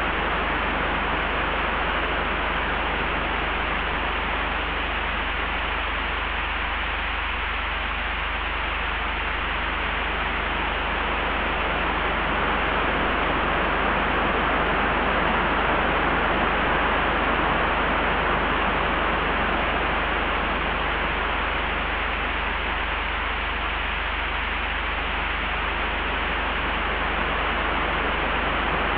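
Layered wind ambience: a continuous rush of wind that swells slowly to a peak midway and eases again, over a steady low rumble.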